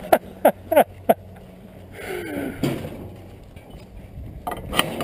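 Sharp metal clanks and rattles from steel pipe livestock gates: four quick knocks in the first second, then two more near the end as the gate latch is handled.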